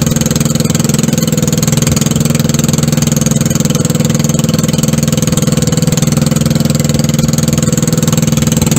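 Outrigger boat's engine running steadily under way: a loud, even drone with a fast, regular beat.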